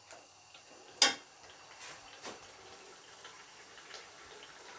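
Steel spoon clinking and scraping against a metal pot while goat tripe is stir-fried in ghee: one sharp clink about a second in, then a few softer knocks. A faint steady hiss of the frying runs underneath.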